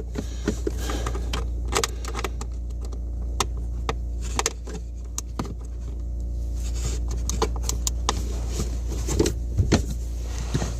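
Irregular light clicks and metallic clinks of hand tools being handled, over a steady low hum.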